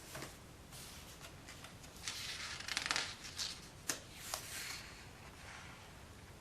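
Paper rustling for about a second, as of a picture book's page being turned, followed by two light taps and a brief softer rustle.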